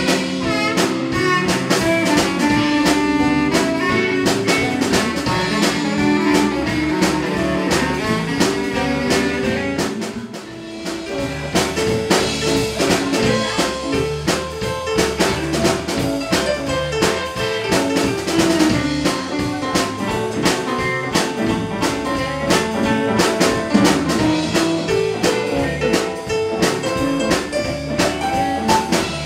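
Live blues band playing an instrumental passage: electric guitars, bass, drum kit, keyboard and saxophone over a steady beat. The band thins out briefly about ten seconds in, then comes back in.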